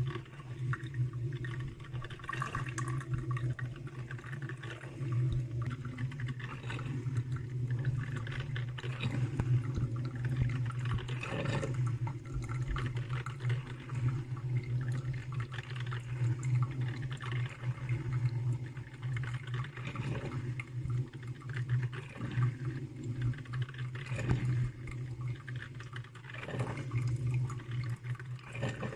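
Salter one-cup filter coffee maker brewing: hot water gurgling and spluttering irregularly as it is pushed up and drips through the filter into the mug, over a steady low hum.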